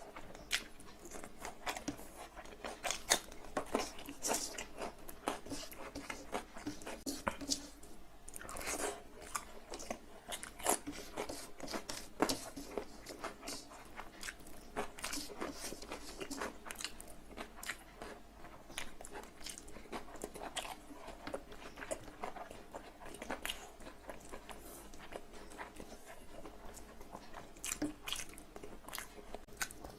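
A person chewing and biting big mouthfuls of egg fried rice with spicy chicken curry, close to the microphone, with a dense, irregular run of mouth clicks and smacks throughout.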